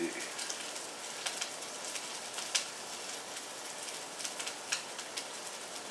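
Food sizzling in a hot pan: a steady hiss with scattered crackling pops.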